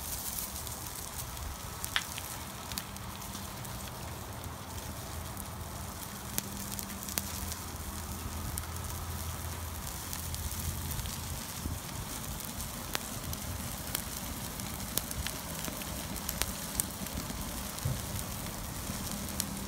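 Open fire crackling, with sharp pops scattered irregularly, over a steady sizzling hiss from sauced chicken breasts cooking on foil on the grill grate.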